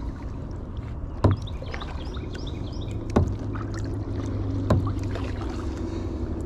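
Kayak paddling: three paddle strokes roughly every one and a half to two seconds, each a short, sharp splash or knock, over a steady low background noise.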